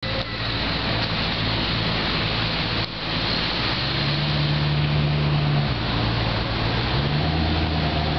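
Car engine running at low revs under a heavy rushing hiss, its low hum stepping up in pitch about halfway through, dropping back, then rising again near the end.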